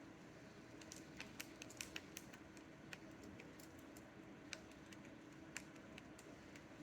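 Faint, irregular clicking of a fidget cube's press buttons, a few light clicks a second as they are pressed one after another.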